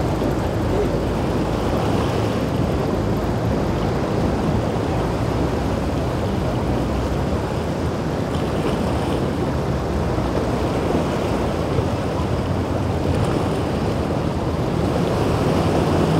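Steady rush of wind on the microphone and choppy inlet waves, with a boat's outboard motor running under it. Near the end the sound grows louder and a deeper engine drone comes in as a larger boat passes.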